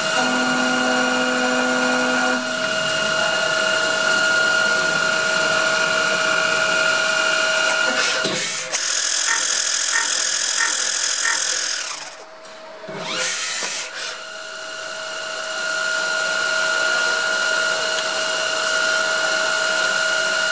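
Screwdriver bit making machine running, with a steady motor whine and hiss. Partway through, the sound turns to a brighter, higher hiss with a few evenly spaced ticks as the tip of the bit blank is worked, drops out briefly, then the steady whine returns.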